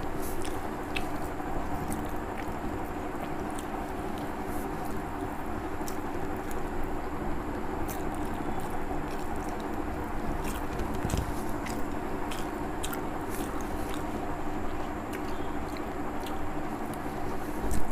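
Close-up chewing and mouth sounds of someone eating soft rice and poached egg by hand, with many small clicks and wet squishes. A steady low hum runs underneath.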